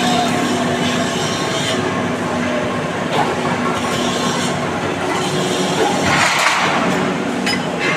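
Steady machinery noise in a concrete railway-sleeper plant: a constant hum under a rushing, rattly din, with a louder rush about six seconds in.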